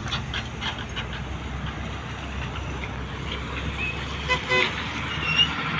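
Diesel engine of a Sumitomo SH350 excavator running steadily, with a few short high-pitched toots about three-quarters of the way through.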